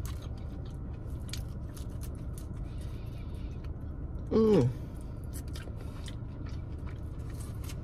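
Close-up mouth sounds of biting and chewing a fried prawn: many small crisp clicks and smacks over a steady low background hum, broken about halfway through by a brief hum with falling pitch.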